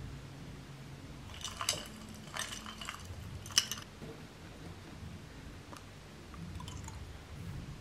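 Sharp taps of an Apple Pencil tip on the iPad's glass screen, in three small clusters about a second apart with the last the loudest, over a low steady room hum.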